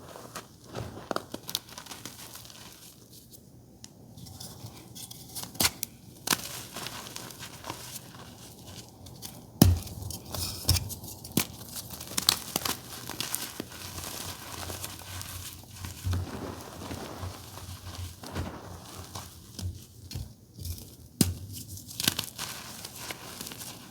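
Reformed gym chalk being crushed, giving irregular crisp crunches and crackles, with a few louder sharp crunches.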